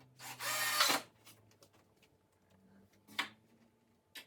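A Ryobi cordless drill with a Phillips bit runs once for under a second, driving a screw into a wooden bracket, its motor whine rising in pitch near the end. A single sharp click comes about three seconds in.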